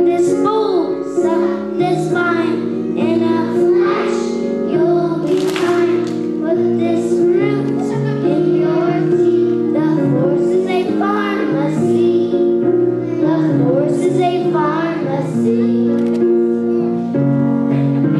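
Young children singing a song over musical accompaniment.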